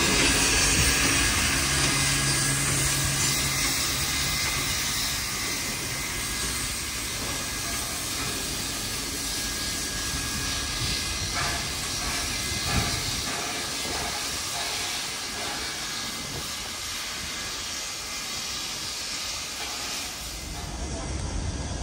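Steam locomotive 3526, a NSW 35 class, hissing steam as it moves off, the hiss loud at first and slowly fading as the engine draws away. There are a few faint regular beats around the middle.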